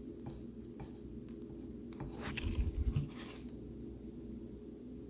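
Faint clicks and light scrapes of hand-soldering tools working on a circuit board, over a steady low hum, with a louder soft bump between two and three seconds in.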